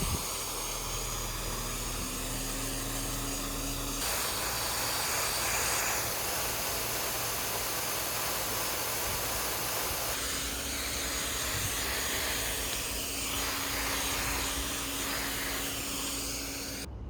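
Water spraying in a steady hissing jet, fine enough to throw a rainbow, with abrupt changes in the hiss about four and ten seconds in.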